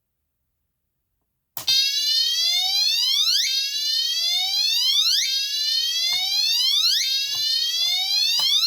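Gentex Commander 3 fire alarm horn strobe sounding the whoop tone, really loud: a click about a second and a half in, then a rising sweep repeated about every second and three-quarters, four times.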